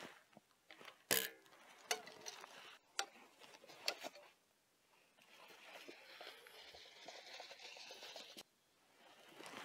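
Four sharp knocks and taps of tools against timber in the first few seconds, then a faint whir for about three seconds that cuts off suddenly.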